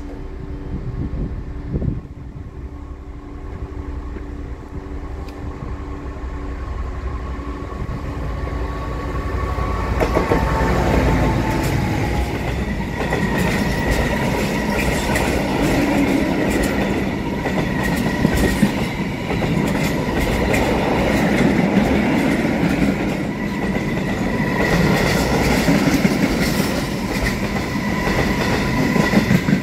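A Class 66 diesel freight locomotive, with its EMD two-stroke V12 engine, approaches with a steady engine drone. About ten seconds in it passes, and its train of covered steel-coil wagons follows, rumbling and clattering over the rail joints with a steady high-pitched whine from the wheels.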